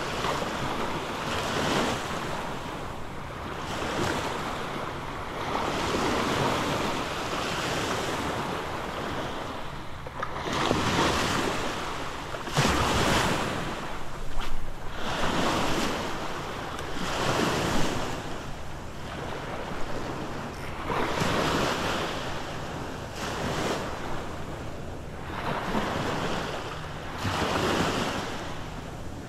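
Small surf waves breaking and washing up the sand at the water's edge, a wash every two seconds or so, with wind rumbling on the microphone.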